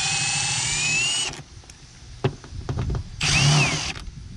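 Power driver spinning out the bolts that hold a Ford F-150's third brake lamp assembly: one run of about a second and a half, then a shorter burst near the end whose whine rises and falls.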